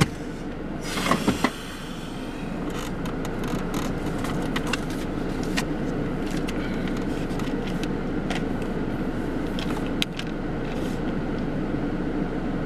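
Car engine idling steadily, with scattered light clicks and rustles over it.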